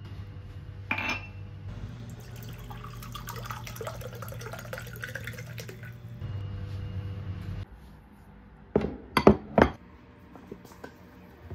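Water poured from a jug into a glass mug for about four seconds, its pitch rising as the mug fills. A little later, three sharp clinks of glass and crockery being set down on a table.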